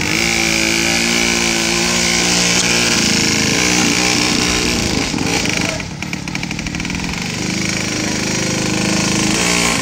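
KTM 50 mini dirt bike's small single-cylinder two-stroke engine running as it is ridden at low speed. It holds a steady buzzing note, eases off about six seconds in, then picks up again.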